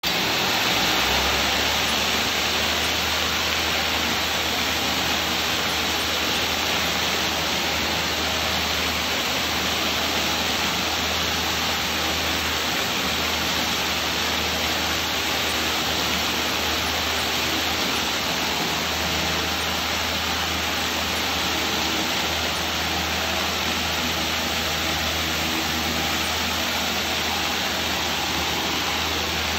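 Hydro-Force SX-12 spinner tile-and-grout cleaning tool at work on a tile floor: a steady, even hiss of pressurized water jets and vacuum recovery, with a low machine hum underneath that comes in about a second in.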